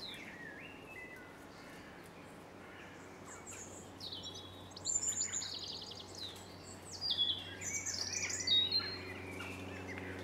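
Songbirds singing in the trees: short, high whistled phrases and trills, several sweeping down in pitch, loudest in the second half. A steady low hum comes in near the end.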